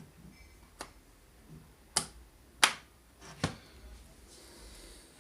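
Sharp plastic clicks from the mechanism of an opened HP Officejet 8500 printer being pushed and moved by hand: four separate clicks at uneven spacing, the loudest about two and a half seconds in.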